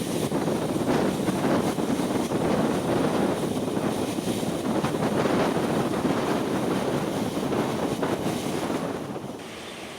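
An ICF local EMU train running on the line, a steady rush of wheel and track noise with wind buffeting the microphone. The noise drops noticeably near the end.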